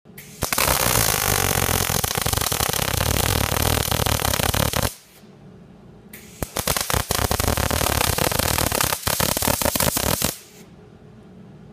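MIG welding arc crackling and sizzling in two runs of about four seconds each, with a short break between them. A low steady hum remains once each run stops.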